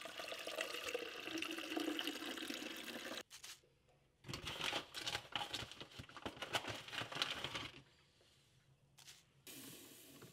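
Drip coffee being made in quick cuts: about three seconds of water running, then, after a short gap, a paper coffee filter crinkling as it is handled in the coffee maker's basket.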